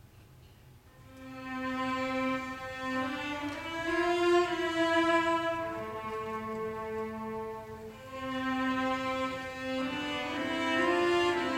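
A student cello ensemble begins playing about a second in: a slow bowed melody in long held notes that swell and ease, the opening of a potpourri on Russian folk song themes.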